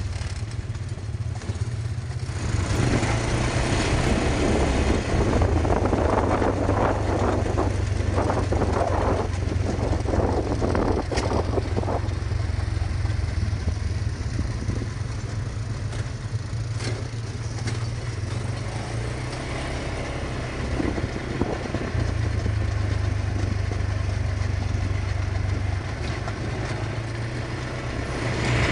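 ATV (quad bike) engine running steadily while riding over a rough gravel track. There is a stretch of rattling and clatter in the first half.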